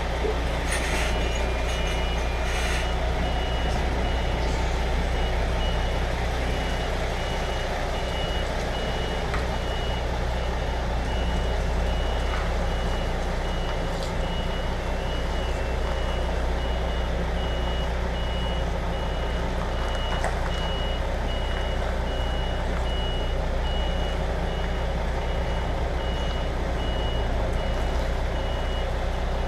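Reversing alarm of an MAN HGV beeping steadily over the low running of its diesel engine as the truck backs up onto a loading bay. Two short hisses of air come in the first few seconds.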